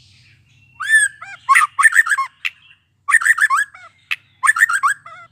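A young white-rumped shama, just out of its spotted juvenile plumage, singing. It gives three bursts of rapid, sweeping notes, with one sharp single note between the second and third bursts.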